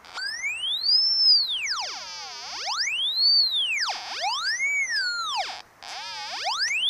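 VK3YNG fox-hunting sniffer's audio tone sweeping up and down in pitch as the tape measure yagi is swung around, its pitch following the strength of the received 2 m beacon signal. The tone rises and falls in several long arcs, with a brief break near the end.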